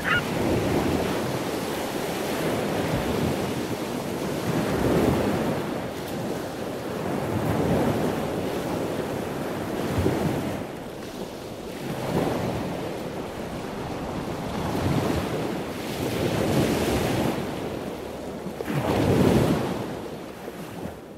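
Ocean surf: waves breaking and washing in, the noise swelling and falling back every two to three seconds.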